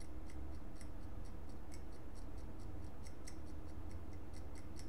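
Quick light ticks, about four a second, of a worn stainless-steel surgical scalpel blade scraping at a laptop circuit board, over a steady low hum.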